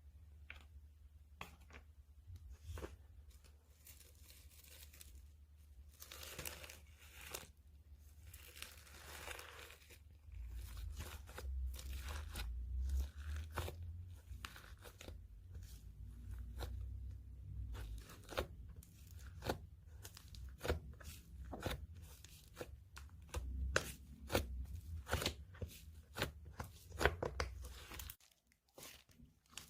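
Homemade clay slime being squeezed, stretched and pulled apart by hand: irregular crackly pops and tearing sounds. A low rumble runs under it for much of the time and stops shortly before the end.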